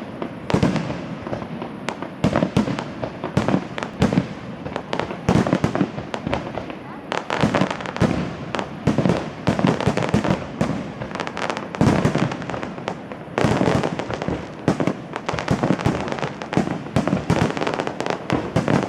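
Fireworks display: shells bursting in a rapid, irregular run of bangs and crackles, with louder clusters of reports every few seconds.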